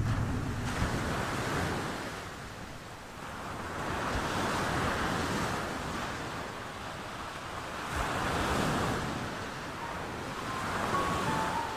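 Sea surf washing onto a sandy beach, the noise of the waves swelling and falling in several slow surges.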